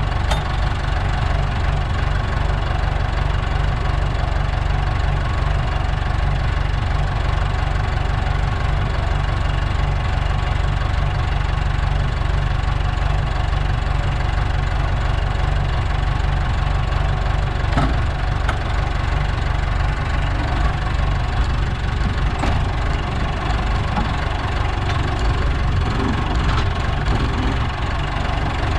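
Landini Trekker 85 crawler tractor's Perkins diesel engine idling steadily with the tractor standing still.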